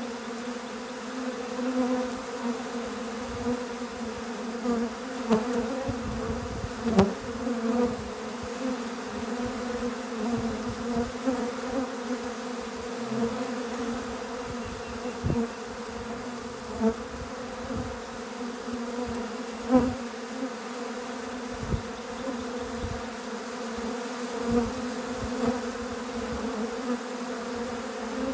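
Dense, steady buzzing of a crowd of honeybees at close range as they feed in a frenzy. Now and then a brief bump sounds close by, the loudest about seven and twenty seconds in.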